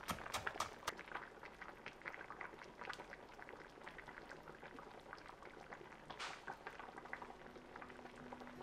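Faint kitchen prep sounds. A knife chops a few times on a wooden cutting board, then there are small clicks, taps and scrapes of a spoon and jars against a glass mixing bowl as sauce ingredients are scooped in, with a brief rustle about six seconds in. Soft background music starts near the end.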